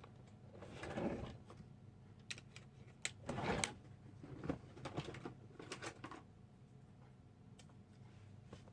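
Hands handling small parts and tools on a workbench: scattered light clicks and taps, with two brief rustling or scraping sounds about a second in and about three and a half seconds in.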